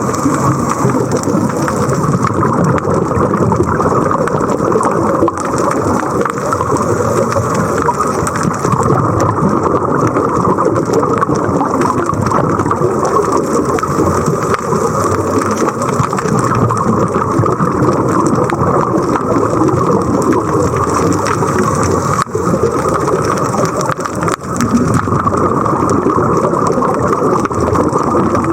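Steady, loud rushing and rumbling water noise.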